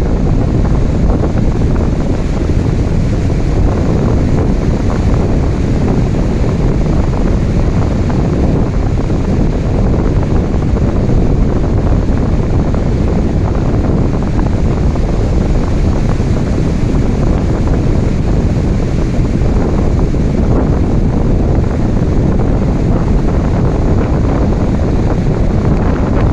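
Ocean waves and rain together: a steady, dense wash of noise, heaviest in the low end, with no separate wave crashes standing out.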